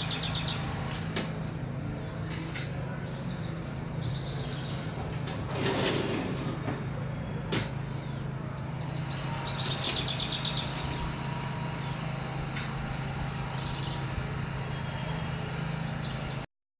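Small birds chirping in short trills over a steady low hum, with a few light taps. About six seconds in comes a brief rasp of painter's tape being pulled and pressed onto a plexiglass canopy. The sound cuts off suddenly near the end.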